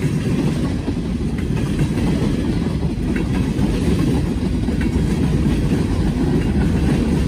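Norfolk Southern freight train rolling past: a steady low rumble of wheels on rail with faint scattered clicks.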